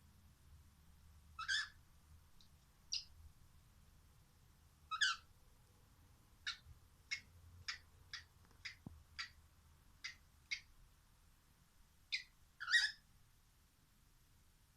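Cockatiel making a series of short, sharp clicks, about fifteen in all, with a run at about two a second in the middle and a few louder, raspier ones near the start and end.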